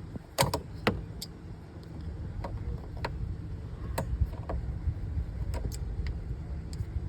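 Scattered sharp clicks and light knocks of handling, about a dozen at irregular intervals and loudest in the first second, over a low steady rumble.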